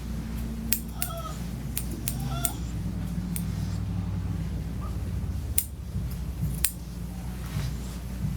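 Dog making short, high whines several times, over a steady low hum, with a few sharp clicks in between.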